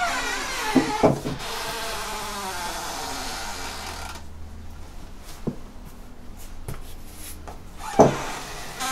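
Wooden wardrobe creaking as a drawer is worked open, with a few wooden knocks; the creak runs through the first few seconds and the loudest knock comes near the end.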